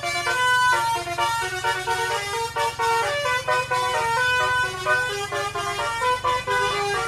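Basuri multi-tone 'telolet' bus horn playing a tune, several notes at once stepping to new pitches a few times a second, over the low steady hum of the bus.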